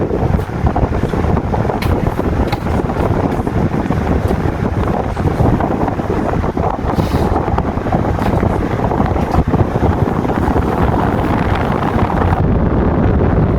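A 60 cm Qualitas wall fan running, its airflow buffeting the microphone as a steady, loud wind rumble.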